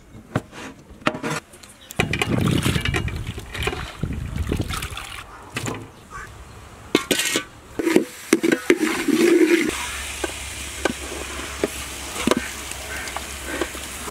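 Cooking in a large aluminium pot: a metal ladle clanks and scrapes against the pot while chopped onion and tomato are stirred, with sizzling and splashing as ingredients go in. Near the end, chunks of conch meat are tipped in and the curry bubbles, over a steady low hum.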